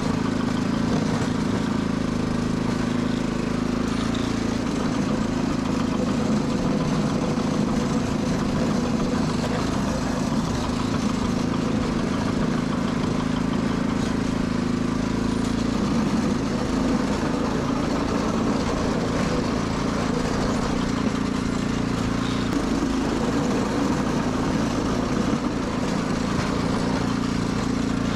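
Sears Suburban 12 garden tractor engine running steadily.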